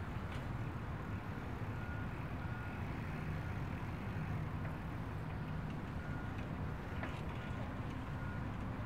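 Steady low rumble of a bicycle rolling along a paved coastal path, wind and tyre noise on the binaural microphones. Faint short high beeps come and go at uneven intervals, a fraction of a second to a few seconds apart.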